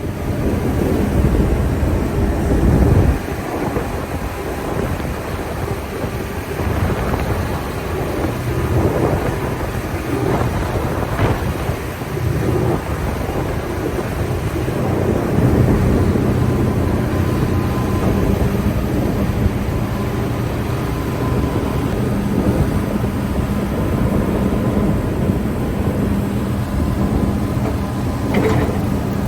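Vecoplan wood shredder chipping wood offcuts: the machine runs with a steady low drone while its two-knife drum crunches and crackles irregularly through the wood fed in by the pull-in rollers.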